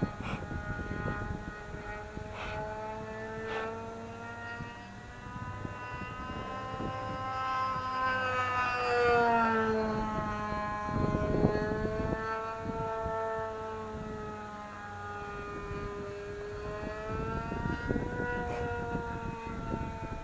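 Vintage radio-controlled model plane's small engine buzzing steadily in flight, its pitch rising and falling gently as the plane flies about.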